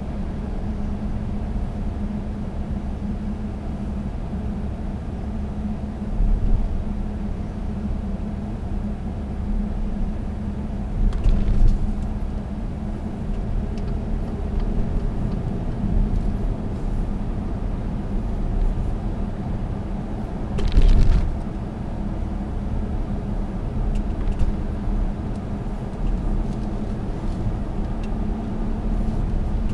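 Cabin noise of an Audi Q7's 3.0 TDI V6 diesel driving at town speed: a steady engine drone with tyre and road rumble. A few louder bumps come through, the loudest about 21 seconds in.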